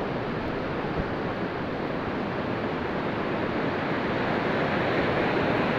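Steady wash of ocean surf breaking on the beach, mixed with wind on the microphone, swelling slightly toward the end.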